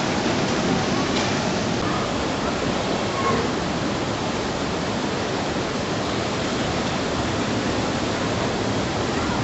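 Steady rush of splashing pool water, with faint voices now and then.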